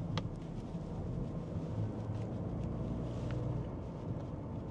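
Steady road and engine noise of a car being driven, heard from inside the cabin, with a few faint clicks.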